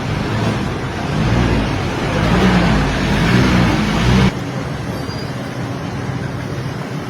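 Motor vehicle engine running close by amid traffic noise, its low hum swelling for a few seconds before cutting off abruptly about four seconds in; quieter street noise follows.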